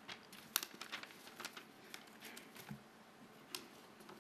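Quiet pause in a hall: faint room hiss with a few soft clicks and light rustling, the sharpest click about half a second in.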